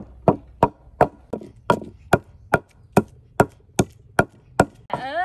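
Wooden pestle pounding garlic and black pepper in a mortar, a steady run of sharp knocks about two and a half a second. A voice starts near the end.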